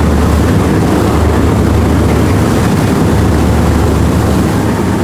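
Boat engine running steadily with a deep rumble, mixed with rushing wind and water noise.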